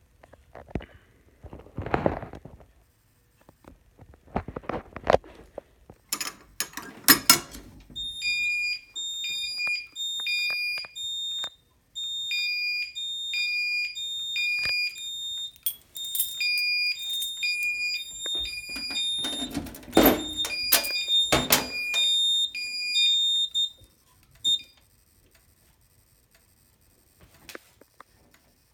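Fire alarm notification appliance sounding in a pulsing on-off pattern of high steady tones during a fire alarm system test, starting about a quarter of the way in and stopping about four-fifths of the way through. Loud mechanical clunks and clatter come before it begins and again near its end.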